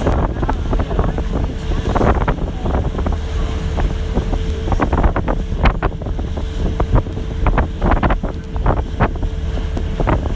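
Ride on a motor boat: a steady low engine rumble with a held hum, wind buffeting the microphone, and irregular knocks and clatters throughout.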